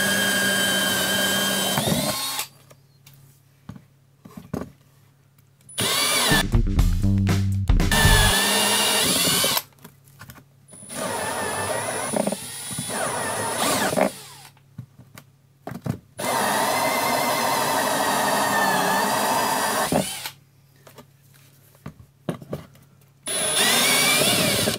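Cordless drill cutting holes through a plastic tool box wall with a hole saw and a step bit, running in five bursts of two to four seconds each, its whine shifting up and down in pitch as the bit takes load.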